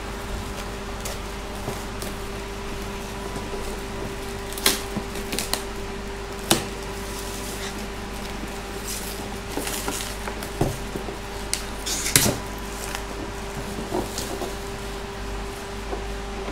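Plastic shrink wrap crinkling and tearing as it is pulled off a cardboard router box, with scattered knocks and taps from the box being handled on a table. A steady hum runs underneath.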